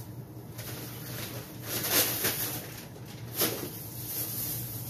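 Plastic shopping bags rustling and crinkling as hands rummage through them, with louder crinkles about two seconds in and again a little later.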